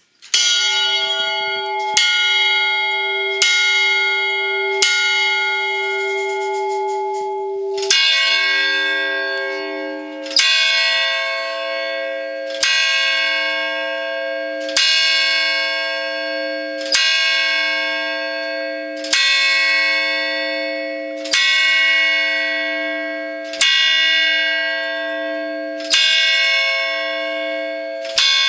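Town hall clock tower bells, cast by Peter Hilzer in 1896, striking ten o'clock. A higher bell strikes four times, about one and a half seconds apart. Then, from about eight seconds in, a deeper bell strikes the hour ten times, about two seconds apart, each stroke ringing on into the next.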